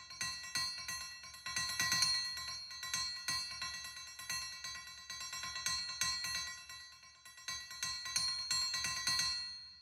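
Outro music of bell-like chimes, struck in a rhythm of ringing tones, fading out near the end.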